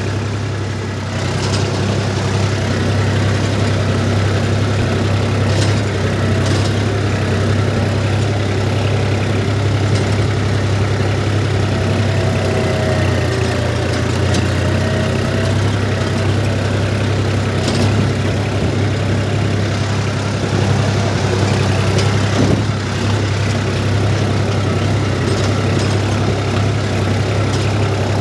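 New Holland tractor's diesel engine running steadily with a deep hum, heard from the driver's seat as the tractor drives across a tilled field.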